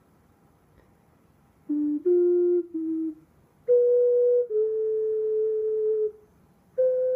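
Ocarina playing a slow lullaby melody: single pure notes, some short and one held for over a second, with brief pauses between phrases. It starts about a second and a half in, after quiet room tone.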